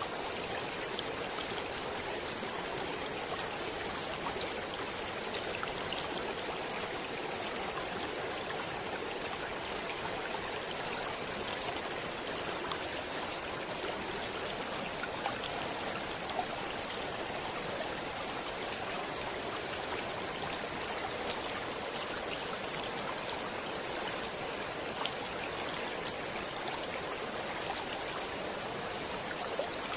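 Flowing stream water with a steady rushing sound, flecked with small splashes and drips.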